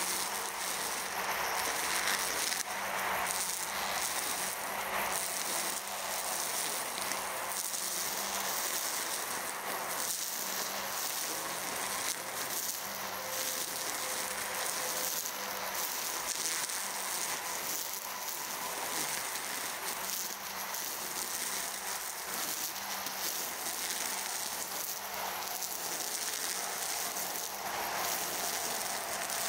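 EGO Power+ cordless brush cutter running steadily as it is swept through tall grass: a faint electric-motor whine under a constant hiss and rattle of grass being cut, with irregular short swishes as stems are struck.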